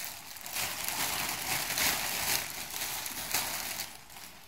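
Thin plastic bag rustling and crinkling as it is handled and pulled away, an uneven scratchy rustle.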